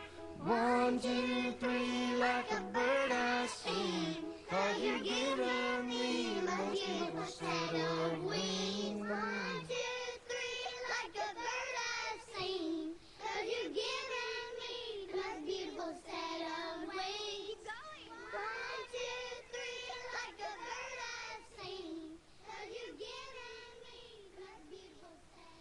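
A pop song with a high, child-like singing voice. The bass line drops out about ten seconds in, and the music fades toward the end.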